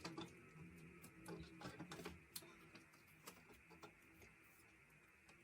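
Faint small clicks and light taps of photocards being handled and slipped into plastic binder sleeves, over soft background music.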